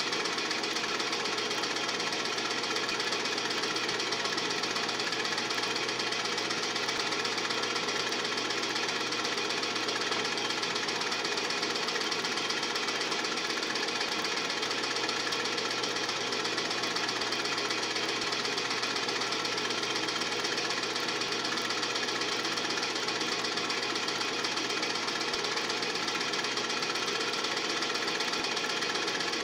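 Film projector running at a steady, even level, its mechanism sounding without a break.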